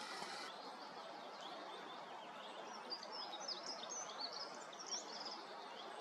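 Small songbirds chirping and twittering: a quick run of high chirps from about two and a half seconds in until about five and a half seconds, over a steady hiss of forest background.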